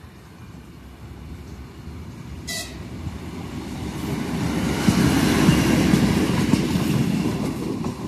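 Class 814 Regionova diesel multiple unit passing close by, its engine and wheels on the rails getting louder as it approaches, loudest about five to seven seconds in, then beginning to fade. A short toot sounds about two and a half seconds in.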